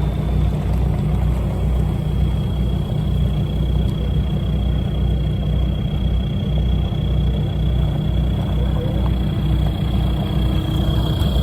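Off-road 4x4 engine and drivetrain running steadily while driving, a deep even drone with a thin steady high whine above it.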